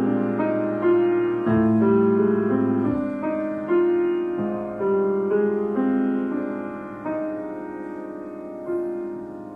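Grand piano played solo in a slow passage: single melody notes and chords struck every half second or so and left to ring, growing gradually softer toward the end.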